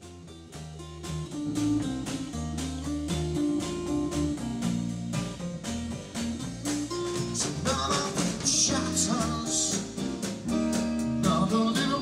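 Band music playing: a steady drum beat with bass and guitar, and a voice singing from a little past halfway.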